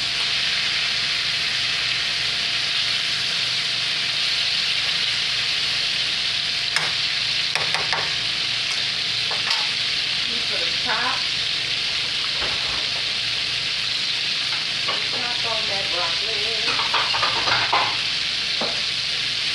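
Breaded chicken breast tenderloins frying in a skillet of hot oil: a steady sizzle, with a few sharp clicks along the way.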